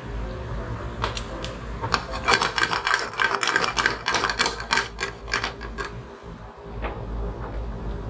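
Minced garlic and chili frying in olive oil in a frying pan, the oil crackling in quick irregular pops. The pops are densest in the middle and thin out near the end.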